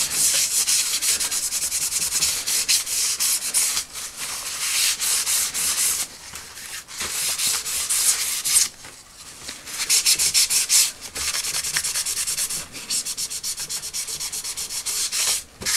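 Folded kitchen towel damp with lighter fluid rubbed quickly back and forth over the printed cardboard of an old toy box, a scrubbing hiss of rapid strokes that scrubs off old sellotape glue residue. The strokes stop briefly a few times near the middle.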